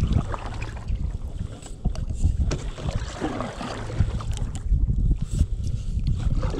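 Canoe paddles stroking and splashing in lake water, in uneven strokes every second or two. Wind rumbles on the microphone throughout.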